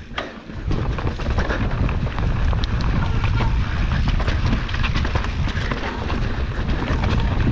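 Wind buffeting the microphone on a mountain bike riding down a muddy trail: a loud, steady low rumble sets in about half a second in, with many small clicks and rattles from the bike and tyres over rough ground.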